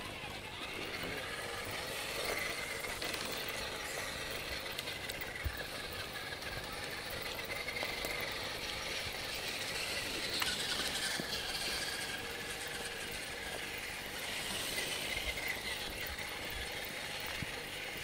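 Radio-controlled crawler truck's small electric motor and gearing whining steadily as it crawls along a dirt trail, the thin whine wavering a little with the throttle, with occasional clicks.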